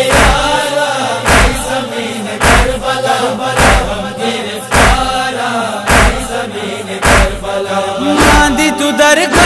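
Voices chanting a Shia noha lament in a slow, drawn-out melody, with a deep thump roughly once a second keeping the beat. A wavering voice line comes in near the end.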